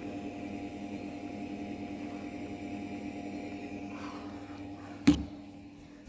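Egg incubator running with a steady electric hum. A single sharp click comes about five seconds in, after which the hum fades.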